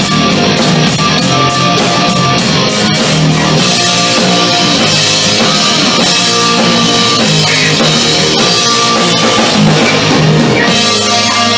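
Live rock band playing loud and steady: distorted electric guitars, drum kit and keyboard together.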